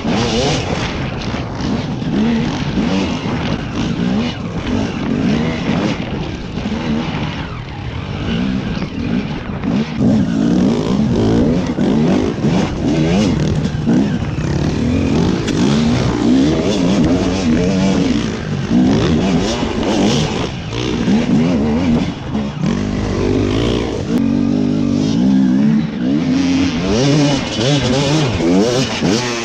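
Dirt bike engine being ridden off-road, the revs rising and falling constantly as the throttle is worked over bumpy ground.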